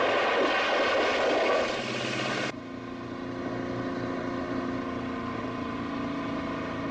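A 1952 Ford Customline hearse skids round a corner, its engine running hard over loud tyre and road noise. About two and a half seconds in, this cuts off abruptly into a quieter, steady car engine drone.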